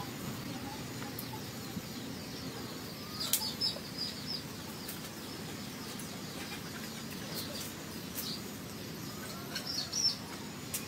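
Outdoor ambience with steady low background noise, small birds chirping briefly about three seconds in and again near the end, and a few light clicks.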